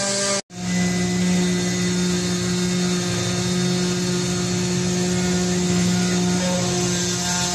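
Stone CNC router's water-cooled spindle running steadily as its bit cuts wet marble: a steady hum with overtones over a hiss. The sound cuts out for an instant about half a second in, then resumes at a very slightly lower pitch.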